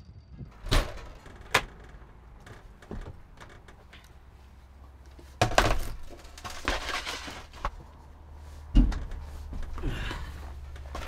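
Knocks, thuds and clothing rustle as a person climbs up into a truck camper through its doorway. A low steady hum sets in about halfway.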